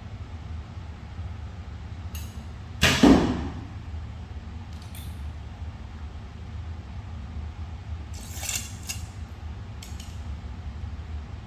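A 26-pound recurve bow shot: a sharp snap of the string on release about three seconds in, with a brief ringing decay. A few fainter clicks follow later, over a steady low hum.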